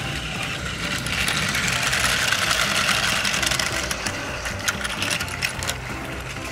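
Battery-powered Plarail toy train's small motor whirring and its wheels clattering over the plastic track segments, louder from about a second in, with scattered clicks later on.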